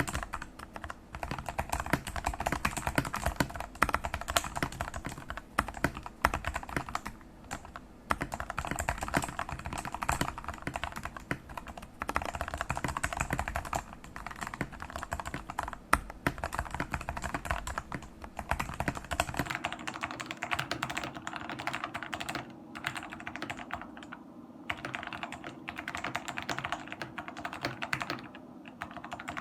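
Typing on a mechanical keyboard fitted with Jailhouse Blues switches turned linear by sanding the tactile bump off their stems: a continuous run of keystrokes. About twenty seconds in, the recording changes to another phone microphone and the keystrokes lose their low end.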